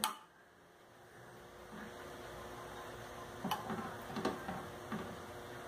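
A few faint taps of a metal serving spoon against a pot while rice is dished up, over a low steady hum.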